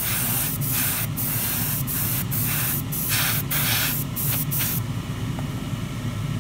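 Airbrush spraying grey primer in short hissing bursts about twice a second, over the steady hum of a spray booth's extractor fan. The spraying stops about five seconds in, and the fan runs on.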